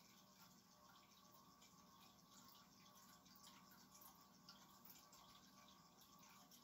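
Near silence: the faint steady hum of a vintage Ritz 52-inch ceiling fan running on a low speed, with a few faint scattered ticks.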